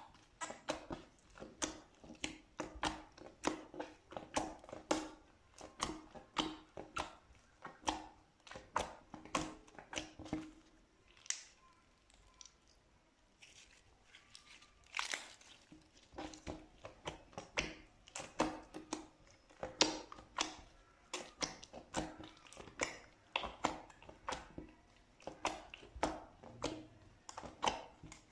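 Slime being pressed and squeezed by hand, making short crackling, popping squishes about two a second, with a lull of a few seconds near the middle.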